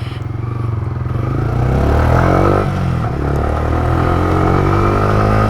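Yamaha R15 V3's single-cylinder engine pulling away, its revs climbing for about two and a half seconds and then holding steady as the motorcycle rides on, its drive chain freshly tightened.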